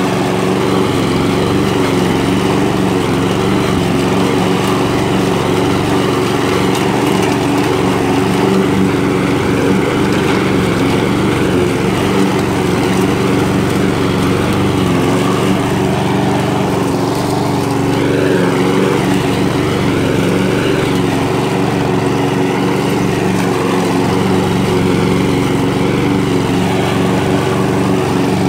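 Walk-behind rotary lawn mower's small petrol engine running steadily at an even pitch while the mower is pushed across grass.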